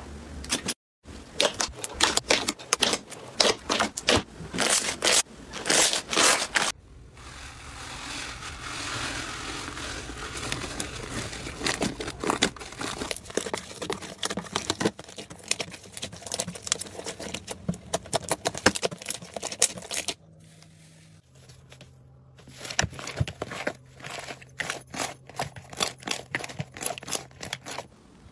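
Hands pressing, poking and squishing slime: dense sticky crackling and popping clicks. The sound changes abruptly about seven and twenty seconds in, becoming a wetter squishing and then quieter clicking.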